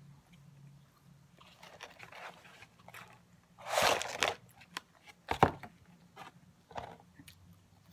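Close-up eating sounds of a person chewing McDonald's food: wet clicks and crunches, with a louder crunch about four seconds in and a sharp click a little after five seconds.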